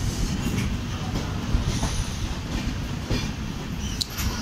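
Passenger train running on the rails, a steady low rumble with scattered clacks of the wheels over rail joints and a sharp tick near the end.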